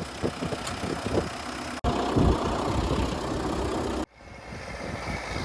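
Farm vehicle engine running, heard in three short cut-together pieces that change abruptly about two and four seconds in.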